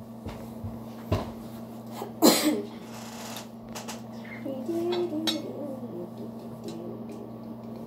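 A fork clinking and scraping against a stainless steel pot as noodles are eaten, in a few sharp clicks. About two seconds in comes one loud, short, noisy slurp, and around five seconds a brief low hum of the voice.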